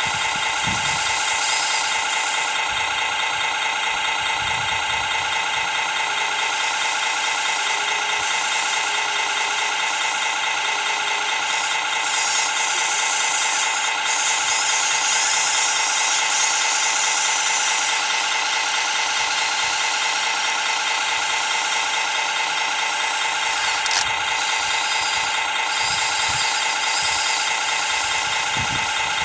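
Radio-controlled model excavator working, its motor and drive giving a steady mechanical whine with a light rattle as it swings, digs mud and dumps into a model truck. A louder hiss comes in for a few seconds around the middle.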